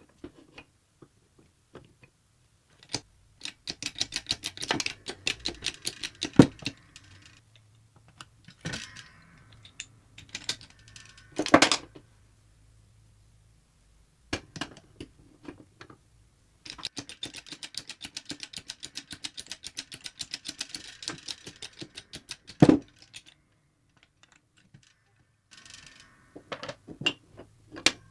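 Rapid, evenly repeated hand strokes on metal parts, coming in runs of a few seconds, with a few sharper metallic knocks in between.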